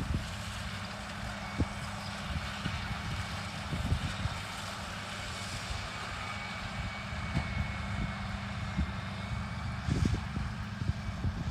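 Case MX135 tractor's diesel engine running steadily with a deep drone, a faint high whine in the middle for several seconds.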